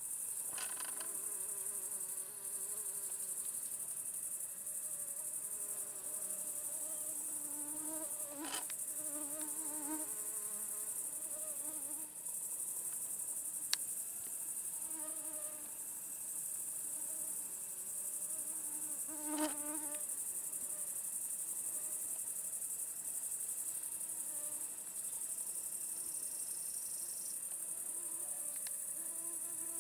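Steady, high-pitched chorus of crickets, with a few faint short clicks and distant calls behind it.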